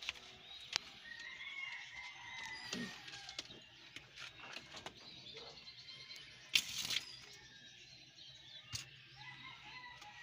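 Faint knocks and rustling in a pigeon loft, with one short burst of pigeon wings flapping about six and a half seconds in.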